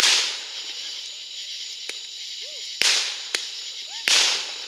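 Fireworks exploding: three loud bangs, at the start, just before three seconds in and about four seconds in, each fading over about half a second, with smaller sharp pops between them and a steady high hiss behind.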